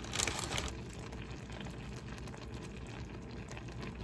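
Buldak noodles in sauce simmering in a pan over a low flame: a faint, steady bubbling. A short burst of louder noise comes right at the start.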